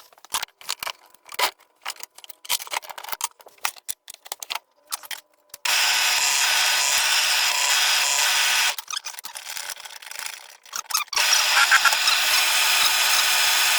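Clicks and knocks of parts being handled. Then a power tool runs steadily twice, for about three seconds each time, with a short gap of clicks between the runs.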